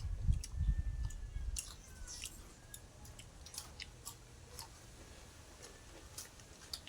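Close-up eating sounds: chewing with many short crisp clicks and crunches, and a few dull thumps in the first second and a half.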